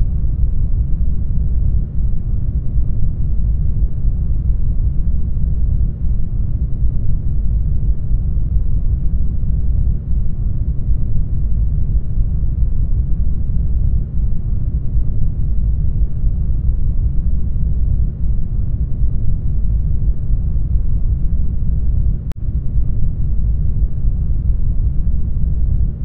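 Isolation-tank ambience: a steady, muffled low rumble, as heard with the ears under water in a sensory deprivation float tank. It dips slightly about every four seconds, with a faint click about 22 seconds in.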